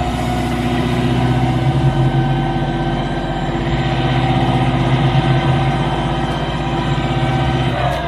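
A heavy vehicle's engine running steadily, with a higher whine over it that falls in pitch near the end.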